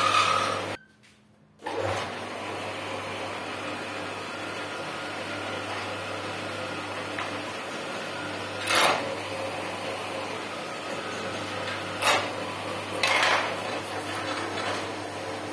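Wood lathe running steadily with a plain wood blank spinning between chuck and tailstock, a low even motor hum. A few short, louder scraping noises stand out, near nine, twelve and thirteen seconds in.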